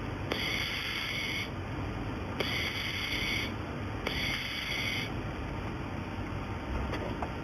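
Welding machine giving a high-pitched whine in short runs of about a second, four times at roughly two-second intervals, then stopping, over a steady background hum.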